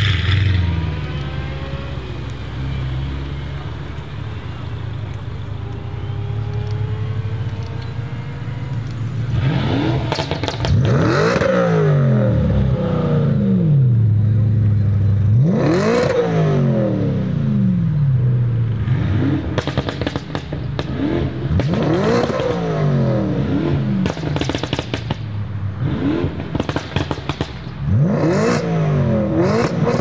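A car's V8 running low as the car pulls away. Then, from about a third of the way in, an Audi RS5's naturally aspirated 4.2-litre V8 is revved sharply about a dozen times, each rev rising and falling quickly, with crackles from the exhaust between revs.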